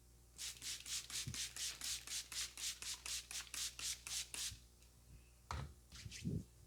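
Hands rubbing briskly back and forth in a head massage, about four strokes a second for some four seconds, then a few softer rubs near the end.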